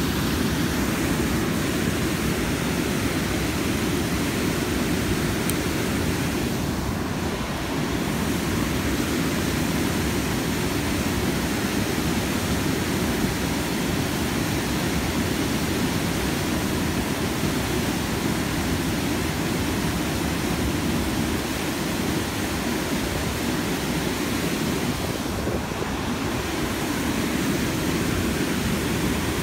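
Steady, loud rush of whitewater pouring over a low-head river dam and churning below the weir.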